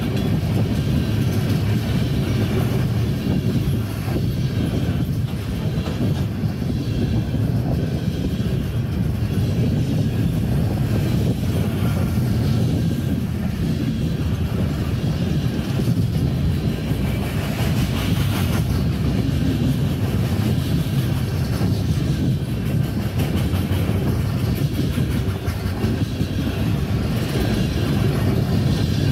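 Freight train tank cars rolling past at a steady speed: a continuous low rumble of steel wheels on rail, heard from inside a car.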